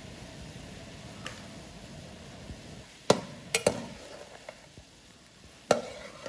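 Pork deep-frying in oil in a metal pot, sizzling steadily, while a metal utensil stirs it and knocks sharply against the pot three times about three seconds in and once more near the end.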